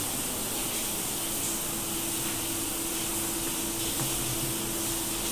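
Steady hiss of heavy rain, with a faint steady hum underneath.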